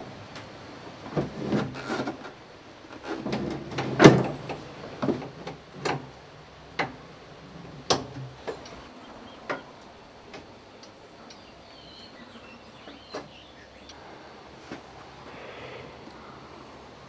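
A series of sharp clicks and knocks from the parts of a ride-on mower being moved by hand, such as its deck height lever and access panels, with no engine running. They come in quick clusters early on, the loudest about four seconds in, then as single knocks every second or two.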